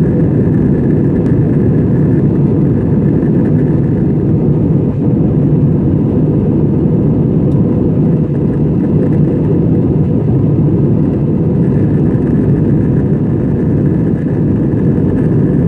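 Steady, loud cabin noise of a jet airliner in flight, heard from inside the cabin: engines and rushing air, mostly deep, with a faint higher hum above it.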